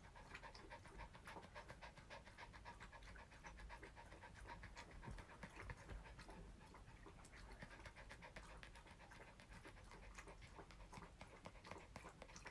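Small terrier panting quickly and steadily with its tongue out, faint: out of breath from hard play.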